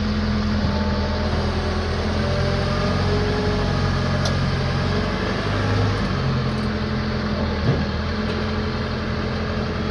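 Branson F-series compact tractor's diesel engine running steadily, its note shifting a little in the middle, with a single sharp knock about three-quarters of the way through.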